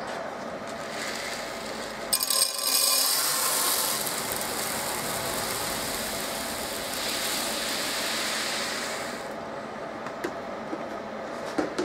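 Malted grain poured from a plastic bucket into a stainless steel grain mill hopper: a loud rushing hiss of kernels pattering onto the metal, starting about two seconds in and easing off around nine seconds. A few light knocks near the end.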